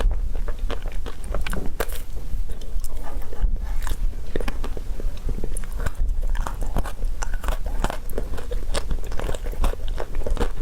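Close-miked eating: a person biting and chewing crunchy food, with many quick, irregular crunches and crackles.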